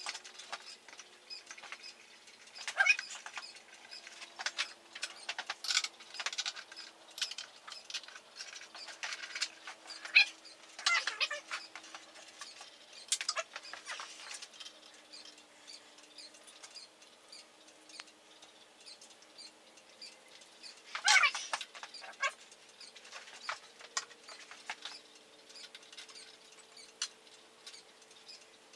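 Scattered clinks, rattles and handling noises of hand tools and hardware as a motorcycle windshield is unbolted, with a few louder clatters, over a faint steady hum.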